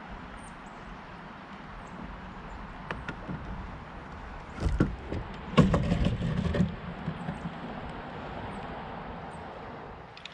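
Hollow knocks and a rough scrape on the plastic hull of a Jackson Coosa HD fishing kayak about halfway through, over a steady rush of moving river water.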